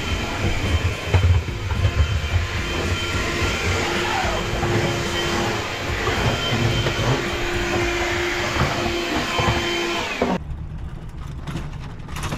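Cordless drill-driver running in short spells, each one to two seconds, to undo the screws holding wooden camper-van furniture, with knocking and clatter from the wood and the van's metal floor. About ten seconds in the sound changes to a few light rattles.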